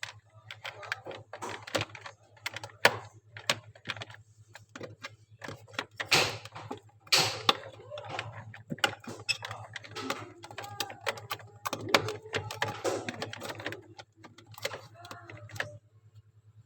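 Irregular sharp clicks and knocks, like hands handling plastic parts and tools while working on a refrigerator, over a steady low hum, with voices in the background.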